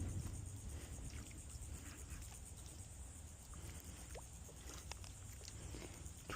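Faint outdoor ambience: a low wind rumble on the microphone and a steady high-pitched hiss, with a few scattered faint ticks.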